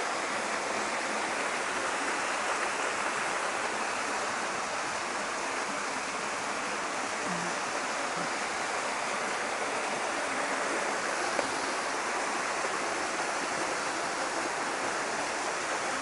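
Waterfall tumbling down in cascades: a steady, even rush of falling water.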